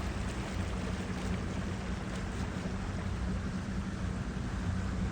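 Boat motor running steadily at cruising speed, a constant low hum, with the hiss of water and air rushing past the moving boat.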